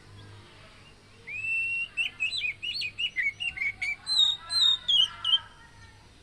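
Oriental magpie-robin (kacer) singing a full song phrase. It starts about a second in with a long whistled note that rises and then holds, followed by a quick run of varied, sharp whistled notes, and stops shortly before the end.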